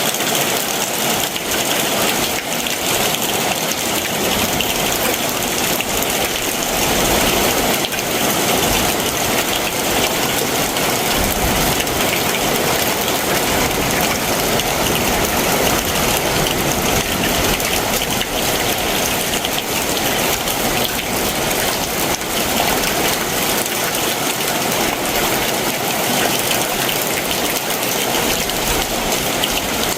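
Heavy monsoon downpour: a steady, dense hiss of rain with many fine drop hits, unbroken throughout.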